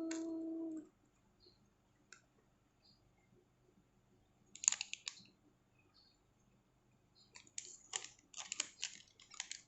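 Light, irregular clicks and crackles of cake packaging being handled. A short cluster comes about halfway through, then a denser run of them near the end.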